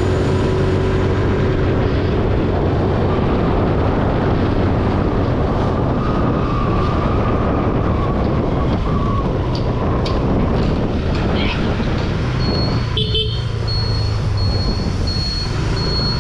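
TVS Jupiter scooter's engine running steadily under way, with road and wind noise and traffic around it; a horn sounds partway through. Near the end a repeating high-pitched beep starts, about one a second.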